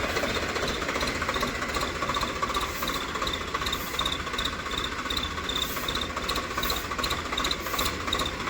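Tractor diesel engine running steadily, with a faint high chirp repeating about two to three times a second.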